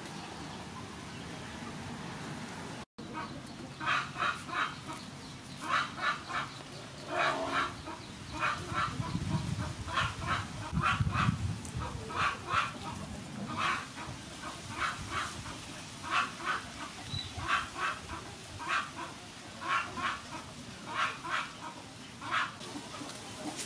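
Farmyard poultry calling over and over in short runs of two or three calls, starting about three seconds in after a brief cut in the sound.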